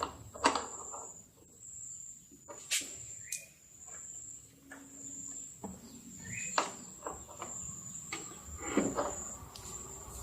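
Scattered sharp clicks and knocks over a steady high-pitched whine, with a couple of short rising squeaks.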